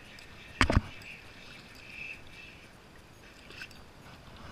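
Two quick, loud knocks on a plastic kayak about half a second in, over a steady faint hiss of water.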